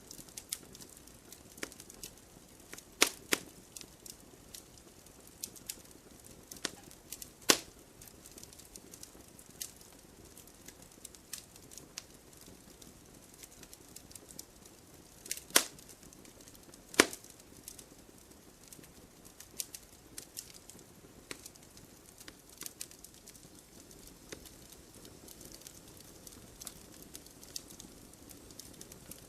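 Wood fire burning in a fireplace: logs crackling with scattered sharp pops over a soft steady hiss, with a few louder snaps, two close together about three seconds in and others near 7, 15 and 17 seconds.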